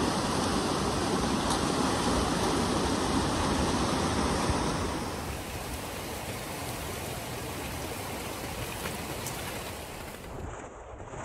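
Mountain creek rushing over rocks, loud and steady for about five seconds. It then drops to a quieter flowing-water sound.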